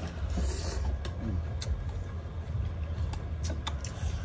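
Scattered light clicks of chopsticks and spoons against bowls during a meal, over a steady low rumble.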